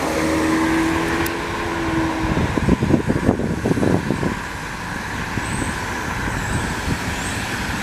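Double-stack container freight train rolling across a steel railway overpass, a steady rumble with a run of knocks and clanks about two and a half seconds in, mixed with road traffic passing under the bridge.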